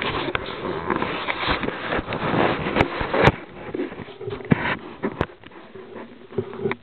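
Handling noise close to a compact camera's microphone as the recording starts: rustling with several sharp clicks and knocks, growing fainter in the second half and stopping abruptly near the end.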